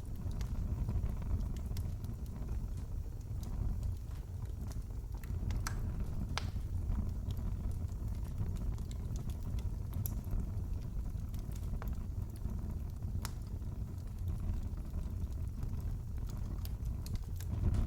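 Wood fire in a fireplace crackling: a steady low rumble of burning with scattered sharp pops and snaps at irregular moments.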